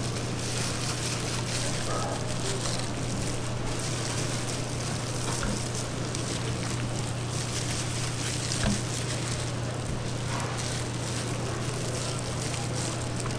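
Steady hiss over a constant low hum, with a few faint clicks: the running noise of a street-food stall's kitchen.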